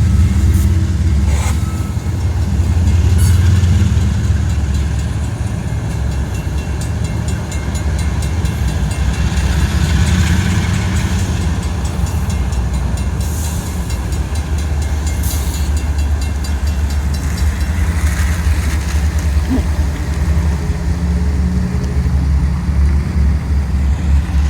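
Coal train rolling past with a loud, steady low rumble. Its wheels click faintly and rhythmically over the rail joints, with a few sharper clanks near the start.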